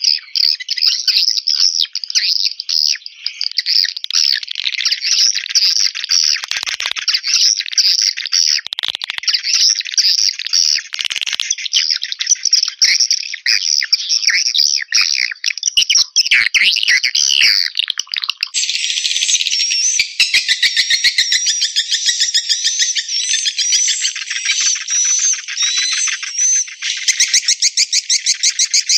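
Recorded swiftlet call track: dense, continuous chirping and twittering of edible-nest swiftlets, the lure sound played to draw swiftlets into a bird house. About two-thirds of the way through it switches abruptly to a different layer of higher chirps with a fast, rapid pulse.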